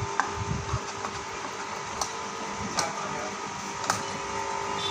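Industrial sewing machine workshop: the steady hum of running machine motors, with four sharp clicks spread through it.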